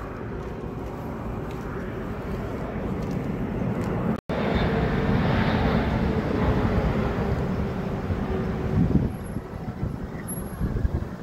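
Traffic noise in a parking lot, with a nearby vehicle's engine running as a faint steady hum. The sound drops out for an instant about four seconds in and is louder afterwards.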